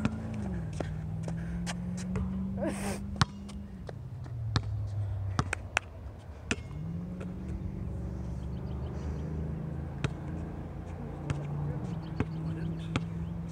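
Scattered sharp knocks of a basketball bouncing on an outdoor court, over a steady low droning hum that slowly rises and falls in pitch.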